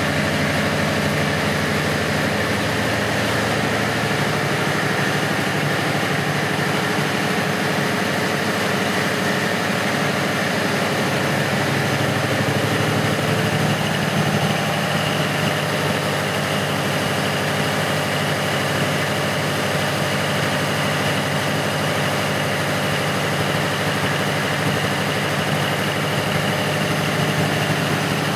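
Large Caterpillar diesel generator set's engine running steadily, a deep, even drone.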